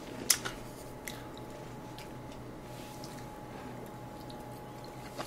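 Quiet eating sounds. A sharp click comes shortly after the start and a lighter one about a second in, then soft mouth sounds as a piece of sauced sweet and sour pork is bitten from chopsticks near the end.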